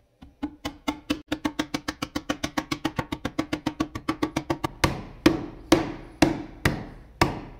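Fist knocking on an ash board to drive a CNC-cut interlocking finger joint home: a quick run of about seven wooden knocks a second, then from about five seconds in slower, harder blows about two a second that ring out briefly.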